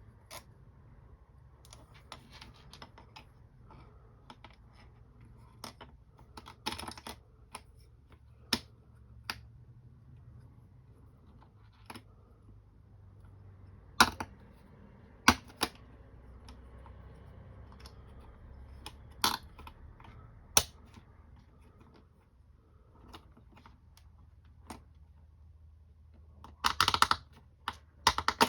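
Carbon-fibre quadcopter frame parts and small metal bolts being handled and fitted together by hand. Irregular light clicks and taps, a few sharp knocks, and a short burst of clattering near the end.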